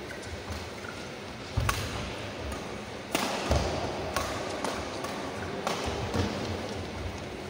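Badminton rally: a few sharp racket strikes on the shuttlecock, roughly a second or so apart, mixed with heavier thuds of the players' footwork on the court.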